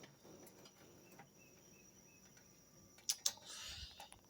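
Lid of a 1957 General Electric waffle baker being lifted open: two light clicks about three seconds in, then a brief soft hiss.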